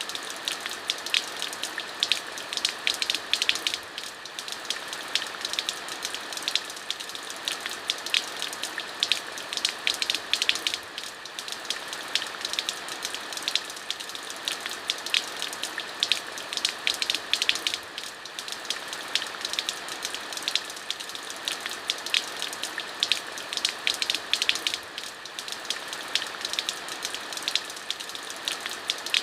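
Steady rain, with a dense patter of sharp individual drops hitting a hard surface over a constant hiss.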